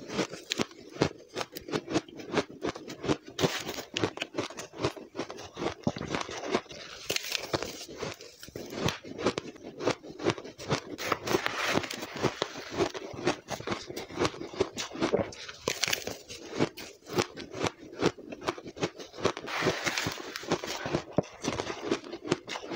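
Fast, continuous crunching and chewing of blender-crushed ice, a dense crackle of many small crunches, mixed with a metal spoon scooping the crushed ice from a plastic container.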